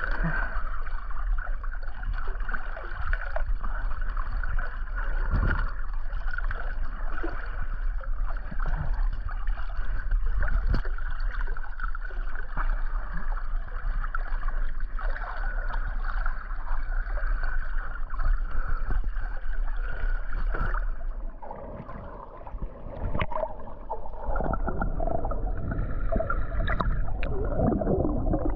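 Water sloshing and gurgling around toys, with a steady low rumble underneath. A little over twenty seconds in, the sound briefly drops in level, then picks up again with a different, lower-pitched texture.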